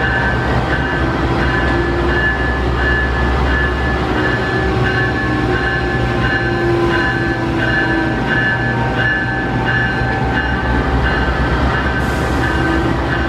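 Amtrak GE P42DC diesel locomotive idling at the platform: a steady low engine hum with a high tone that pulses on and off over and over.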